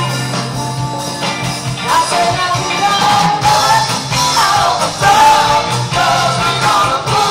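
Music with a singing voice over a bass line.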